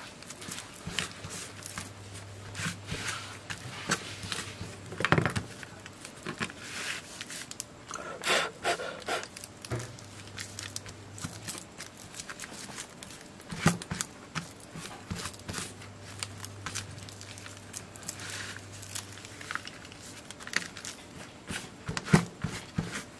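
Hands pressing, folding and smoothing a paper wrapper around a flat lithium-polymer battery pack on a wooden workbench: irregular rustling, crinkling and scraping with sharper crackles now and then. Near the end a cloth rubs over it.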